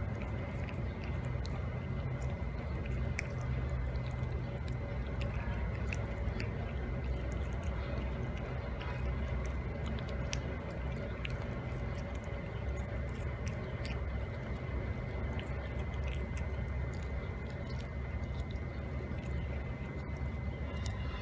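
Domestic cat chewing and tearing at a raw chicken wing: wet chewing with scattered small clicks, over a steady low background rumble.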